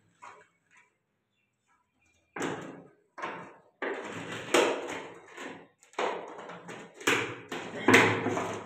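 A large plastic bottle holding a captured cobra, knocking and rattling in a run of sudden bursts as it is handled against a concrete wall, starting about two seconds in.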